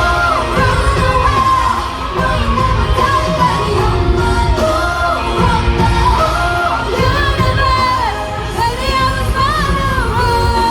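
K-pop song: a sung melody over a loud, steady bass-heavy backing track.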